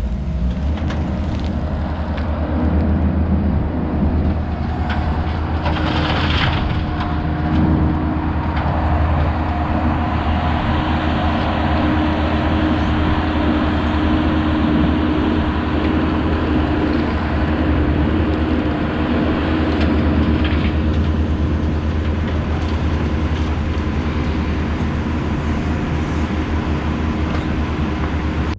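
Excavator engine running steadily under load while gravel is scooped and dumped into a dump truck, with a brief rush of spilling gravel about six seconds in.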